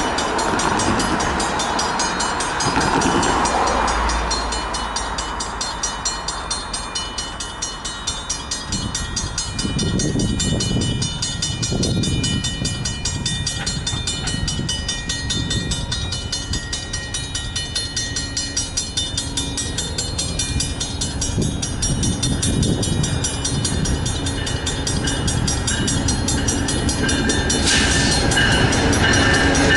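Level-crossing warning bells ringing rapidly and evenly as the signal lights flash and the gate arms come down, over a low rumble of road traffic. Near the end the sound changes to a Via Rail GE Genesis P42DC passenger locomotive approaching, its horn sounding.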